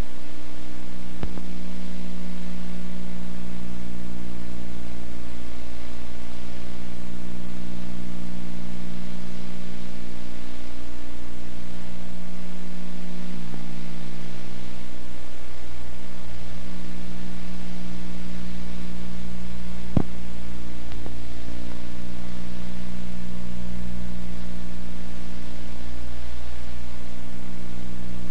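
Steady low hum over constant hiss, with a faint click about a second in and another about twenty seconds in.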